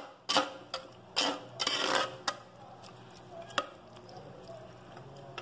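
Spoon stirring gravy in a clay pot, knocking and scraping against the pot's side: a handful of sharp clinks in the first two seconds and one more about three and a half seconds in, then quieter.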